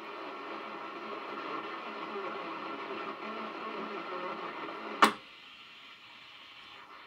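Shortwave reception from a National NC-121 receiver's speaker: a station's voice amid static while the set is tuned. About five seconds in a single sharp click cuts it off, leaving only a quieter hiss.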